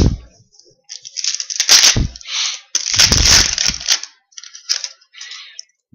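Crinkling and tearing of a foil trading-card pack wrapper, with the cards being handled, in several short irregular bursts.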